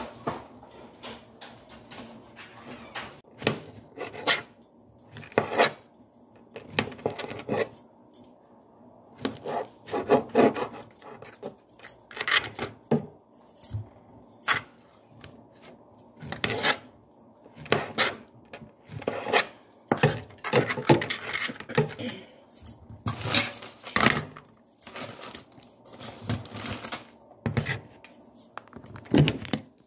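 Kitchen clean-up at a countertop: irregular knocks, clatters and scraping as a plastic cutting board and colander are handled and the wet counter is wiped down. There is a longer stretch of rubbing about two-thirds of the way through.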